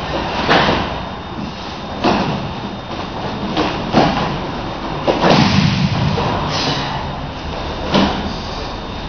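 Repeated heavy thuds of bodies and feet hitting the dojo mat during aikido throws and breakfalls, about six in all, the heaviest and longest a little past halfway.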